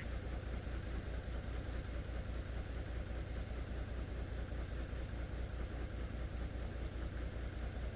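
Nissan Diesel (UD) truck's diesel engine idling steadily, with an even low throb of about five or six beats a second.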